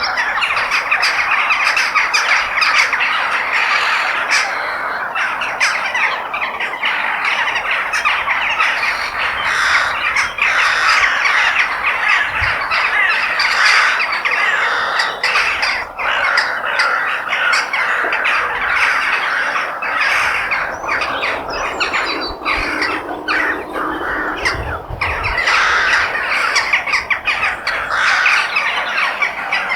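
A flock of crows cawing without a break, many harsh calls overlapping into a dense chorus.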